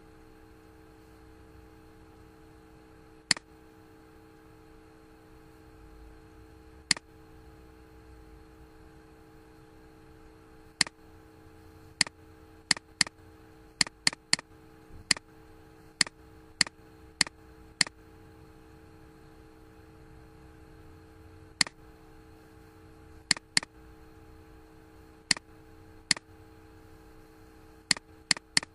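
Sharp single clicks of a computer mouse, irregularly spaced: a few far apart at first, then quicker runs of clicks. A faint steady hum lies under them.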